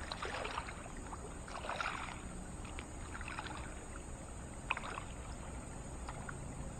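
River water sloshing and splashing softly around a wading angler's legs as he shifts his footing in the shallows, coming in a few gentle swells, with two short sharp clicks, one near the middle and one near the end.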